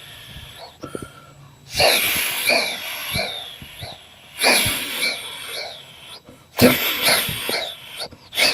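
A person imitating a steam locomotive with the mouth: breathy hissing chuffs in three loud bursts about two seconds apart, each with short high tones that rise and fall, fading between bursts.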